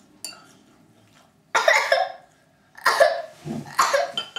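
Three sharp coughs, each sudden and short, about a second apart, beginning a little under halfway in.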